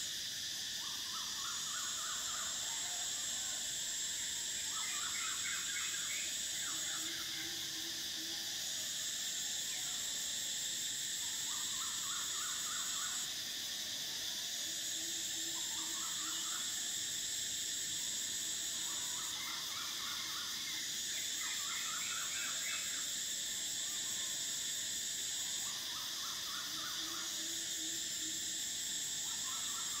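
Cicadas singing: a steady high-pitched drone, with a higher buzz that comes in phrases of about five seconds separated by short breaks. Birds call over it in short runs of quick notes, several times.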